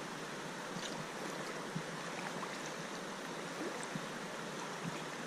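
Creek water running steadily around the waders, with small gurgles and blips throughout.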